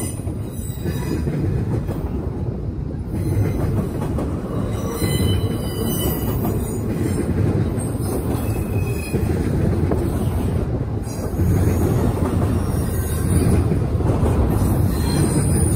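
Double-stack intermodal freight train's well cars rolling past close by, with a steady heavy rumble and intermittent high-pitched wheel squeal.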